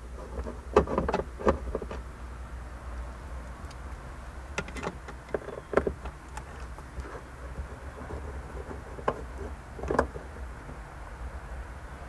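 Phillips screwdriver turning out screws from a car's plastic overhead console: irregular small clicks and ticks of the driver and plastic trim, in clusters about a second in, around the middle and near the end, over a low steady hum.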